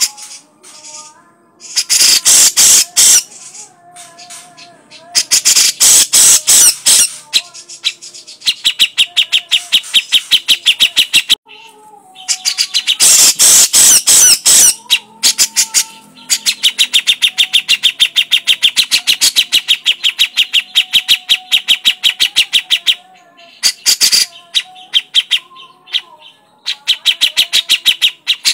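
Grey-cheeked bulbul (cucak jenggot) giving its harsh, rapid rattling chatter call in repeated bursts, the longest running several seconds in the second half.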